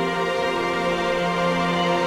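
Background music: slow, sustained held notes, with a change of chord about half a second in.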